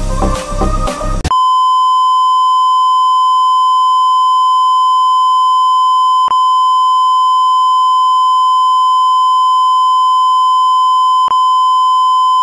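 Electronic background music cuts off about a second in and gives way to a loud, steady electronic beep tone that holds at one pitch, with two faint clicks in it.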